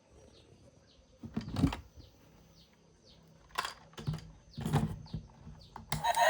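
A few short knocks and clatters, like plastic toys or packaging being handled, over faint high chirps repeating about twice a second. Just before the end a much louder sound with many steady tones cuts in.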